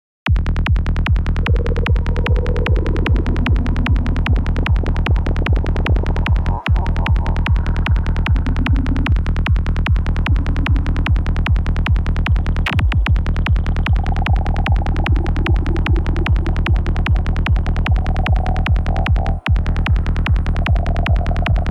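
Forest psytrance loop playing: a fast, even kick-and-bass beat with warped, pitched effect sounds drifting in over it. The beat drops out briefly twice.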